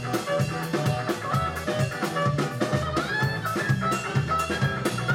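Live band playing an upbeat tune with a steady beat: drum kit, upright bass, electric guitar and clarinet.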